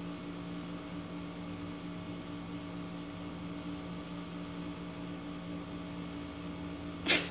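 A steady mechanical hum with a faint hiss, and a brief noise just before the end.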